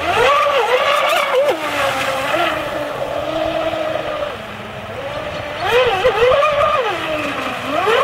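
Radio-controlled speedboat's motor whining at speed, its pitch rising and falling with the throttle. It drops to a lower, quieter tone around the middle and climbs again about six seconds in.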